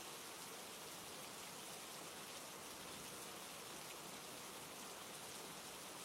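Steady rain falling on forest, an even hiss with no single drops standing out.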